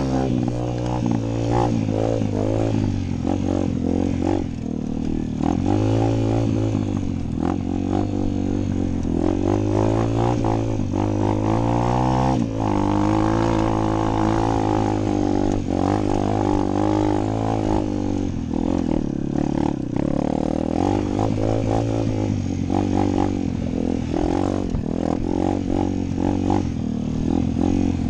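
Evoque VQ-150R 150cc single-cylinder four-stroke pitbike engine being ridden hard through its five-speed gearbox, the exhaust note climbing and falling again and again as the revs rise and drop, with scattered chassis clatter over the bumps.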